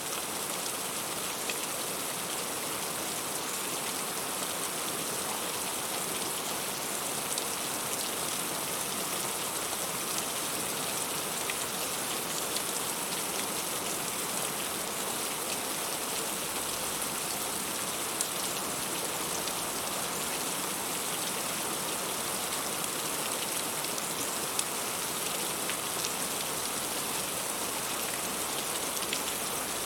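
Heavy rain falling steadily, with scattered sharper drop hits standing out now and then.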